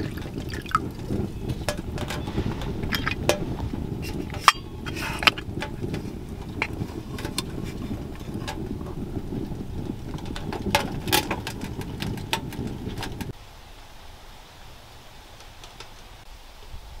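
Small sheet-metal tent wood stove burning: a steady low rumble from the fire with scattered crackles and clicks. About thirteen seconds in it cuts off abruptly to a fainter, even outdoor hiss.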